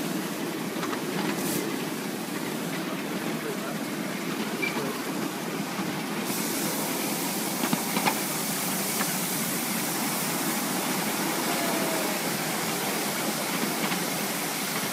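Miniature steam train running, heard from a passenger car: a steady noise of wheels on the track and the locomotive's steam, turning hissier about six seconds in, with a few sharp clicks around eight seconds.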